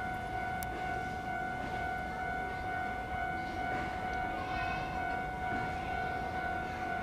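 Japanese level-crossing electronic warning bell ringing with a steady, bright, repeating tone.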